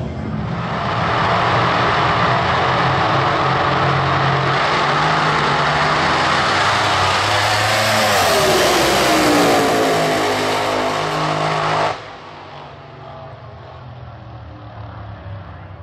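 Supercharged V8 drag car engine running loud after its pass, its pitch falling as it goes by about eight seconds in. About twelve seconds in the engine sound cuts off suddenly, leaving a much quieter steady background.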